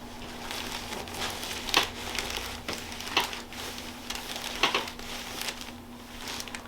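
Rustling and crinkling of hands working over a patient on a chiropractic treatment table, with irregular sharper crackles, the loudest about two seconds in, then near three and four and a half seconds.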